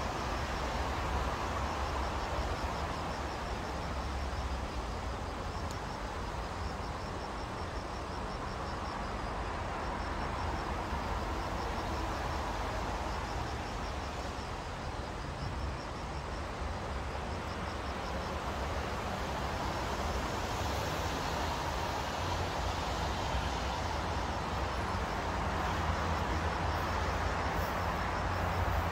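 Steady rumble of distant city traffic that slowly swells and eases, with a faint, rapid, high-pitched pulsing chirp running over it.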